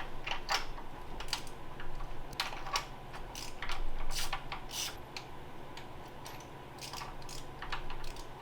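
Irregular sharp clicks and light clinks of hand tools working on the engine, with a faint steady hum underneath, as the old spark plugs are taken out of the KA24DE engine.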